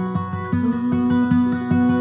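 Gentle background music: plucked acoustic guitar notes over a sustained bass tone that shifts to a higher note about half a second in.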